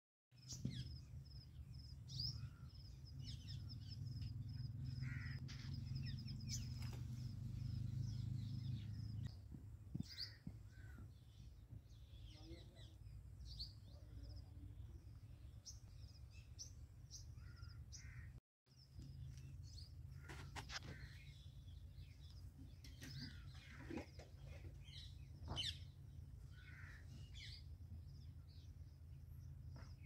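Assorted outdoor bird calls: short chirps and calls scattered throughout, with a rapid high trill of repeated notes in the first few seconds, over a steady low rumble. The sound drops out briefly a little past the middle.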